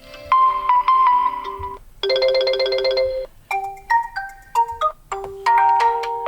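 Realme 9i ringtones played one after another: about four short electronic melodies, each cut off after a second or so with a brief gap before the next begins.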